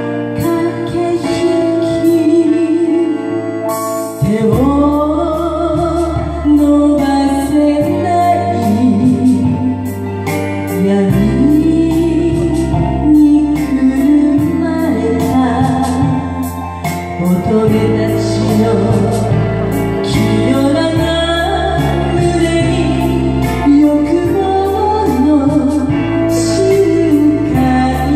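A woman singing a slow, melodic song into a handheld microphone over instrumental backing music, with long held and gliding notes.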